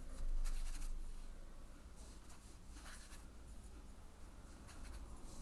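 Watercolour brush rubbing and dabbing wet paint onto watercolour paper: a faint soft brushing, loudest in the first second, then a few quieter strokes.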